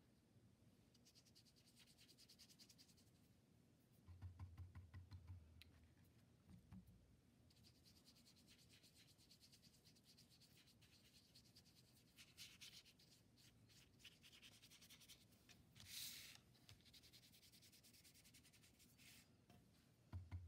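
Faint scrubbing of a paintbrush's bristles on paper, brushing wet paint in quick back-and-forth strokes. A few dull low bumps come about four seconds in.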